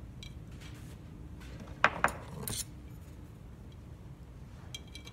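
Small metallic clinks and scrapes of a thin metal tool and a valve stem against a fire extinguisher cylinder as the stem is fished through a hole in it. Two sharp clinks a little under two seconds in are the loudest, followed by a short rattle.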